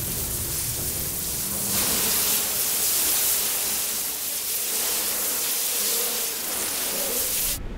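A dense swarm of locusts in flight: a steady, hissing rush of countless wings that cuts off suddenly near the end.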